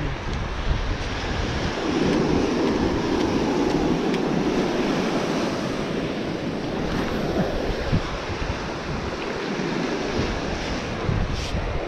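Ocean surf on a sandy beach: a wave breaks and washes in from about two seconds in, fading again after several seconds, with wind buffeting the microphone.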